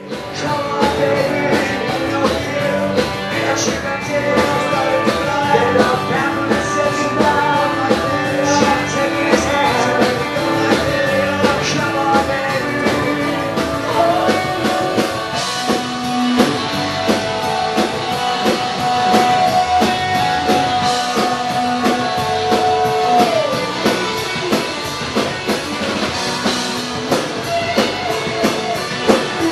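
Live rock band playing: electric guitars, bass guitar and drum kit with a lead singer, one long note held through the middle.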